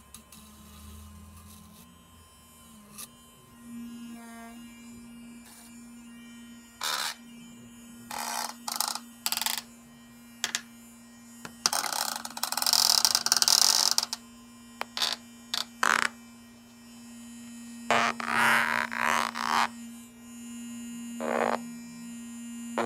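Small battery-powered electric toothbrush buzzing steadily after being switched on about four seconds in. Several louder rasping bursts break in, the longest lasting about two seconds.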